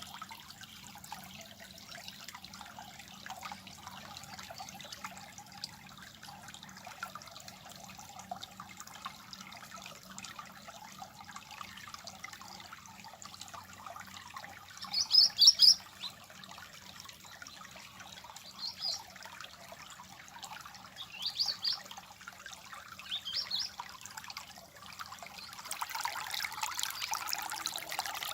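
Water trickling steadily, growing louder near the end. A bird chirps four times in the middle, loudest the first time, about halfway through.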